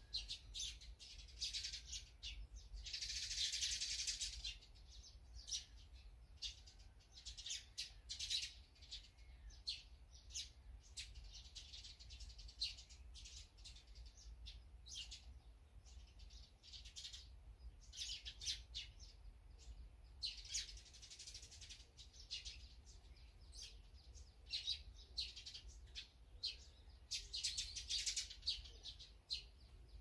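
Small wild songbirds chirping again and again in short calls, with a louder, denser burst of chirping about three seconds in.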